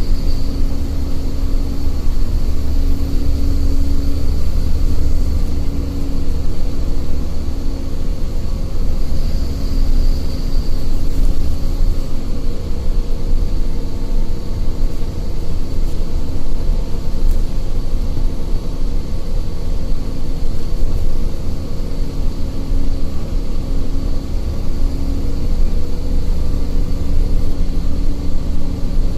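City bus driving at a steady speed, heard from inside the passenger cabin: a continuous low engine and road rumble with a steady hum over it.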